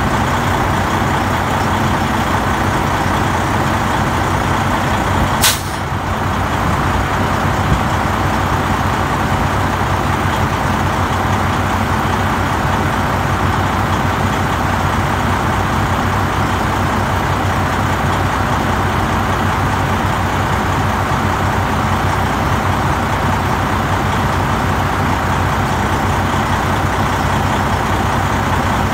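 Heavy diesel truck engine idling steadily, with one brief sharp snap about five and a half seconds in.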